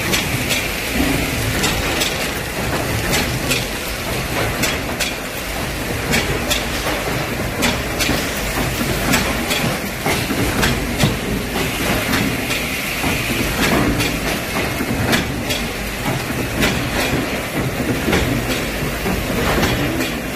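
Automatic snack-bag bundle packaging machine running: a steady mechanical hum and hiss, with sharp clicks and clacks from its moving parts every second or so.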